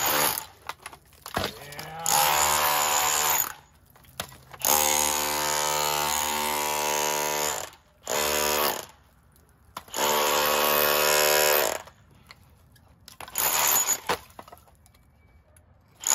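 Handheld power tool chipping old plaster off a stone wall, run in five bursts of about half a second to three seconds each with short pauses between, the longest about five seconds in.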